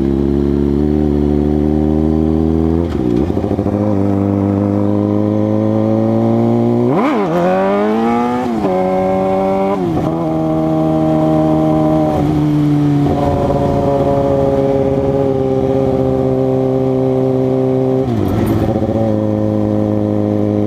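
2006 Suzuki GSX-R600's inline-four engine under way, its pitch climbing slowly through each gear and dropping at each shift, several times over, with a quick dip and sharp rev about seven seconds in.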